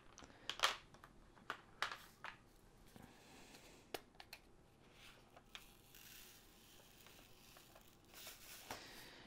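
A small bag of diamond painting drills being handled: faint crinkling and rustling with a few light clicks.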